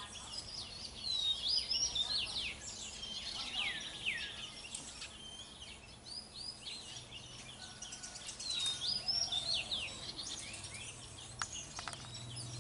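Oriental magpie-robin singing: high, sweeping whistled notes in repeated phrases. Two or three sharp clicks come near the end.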